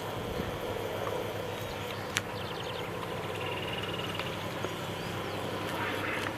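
Steady low drone of an old boat's engine passing on the river, with a rapid chirping trill for about two seconds in the middle and a few faint clicks.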